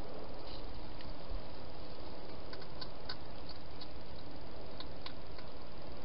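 Steady hiss with a few faint, scattered clicks in its middle part: a wild hedgehog feeding at bowls inside a plastic feeding station.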